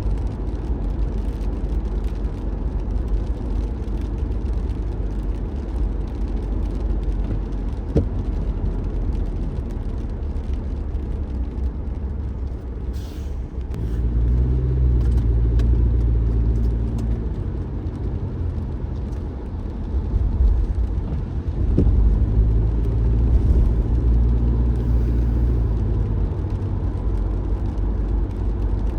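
A car being driven: a steady low rumble of road and engine noise that grows louder for a few seconds about halfway through and again for a longer spell later on. A couple of faint single clicks stand out.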